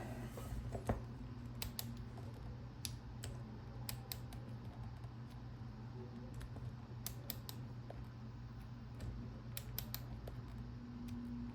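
Irregular small clicks of a Master combination lock's number wheels being turned by hand while feeling for the gates.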